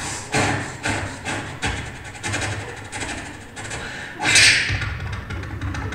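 A man imitating an old steam locomotive with his mouth into a microphone: rhythmic chuffing puffs, about two a second, then a louder hissing burst about four seconds in.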